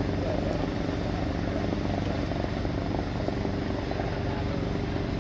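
Boat engine running at a steady pace, a continuous low drone with no revving.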